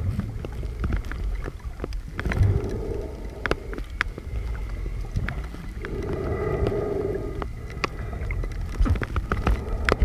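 Glass-bottom boat's engine droning low, heard from inside the hull, with a hum that swells twice and scattered short knocks and clicks.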